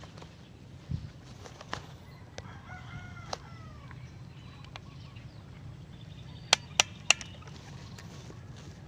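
A rooster crowing once, faint and distant, a single arched call. Scattered sharp clicks and snaps, with three loud clicks in quick succession about six and a half seconds in as the loudest sounds.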